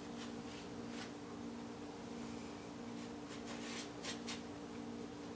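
Paintbrush stroking and dabbing paint onto a canvas in faint scratchy strokes, more of them about three seconds in, over a steady low hum.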